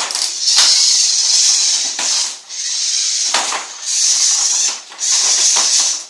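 VEX IQ robots' motors and plastic gear trains whirring hard as they drive up onto the tilting bridge, in stretches with several short pauses.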